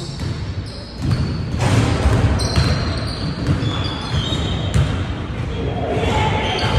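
Basketball bouncing on a hardwood gym floor, with players' footfalls and knocks during a game, in a large gym hall.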